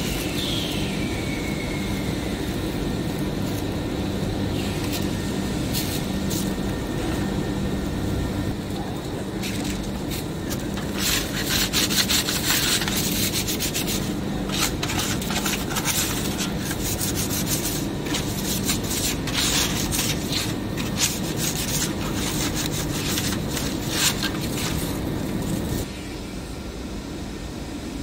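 Polishing cloth and abrasive sheet scrubbed with gasoline over the copper rings of a diffusion pump's jet stack in rapid rubbing strokes, thickest in the middle of the stretch, over a steady low machine hum.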